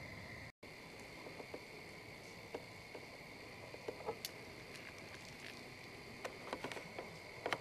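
Steady high trill of a chorus of crickets, with scattered faint clicks and rustles, more of them near the end. The sound cuts out completely for a moment about half a second in.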